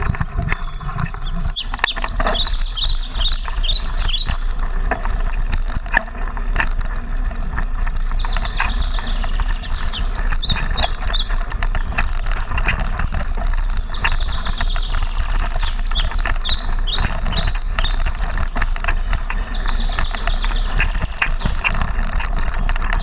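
Mountain bike riding over a rough forest trail, with constant rattles and knocks from the bike and a steady rumble of wind and ride noise on the mounted camera's microphone. Short bursts of high chirping come and go several times.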